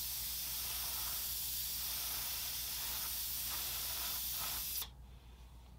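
Airbrush spraying paint onto paper in a steady, airy hiss that cuts off sharply near the end as the trigger is released.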